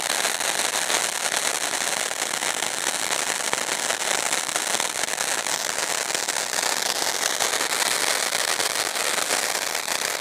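Cocktail-type ground fountain firework spraying sparks: a steady, fairly loud hiss thick with rapid crackling pops.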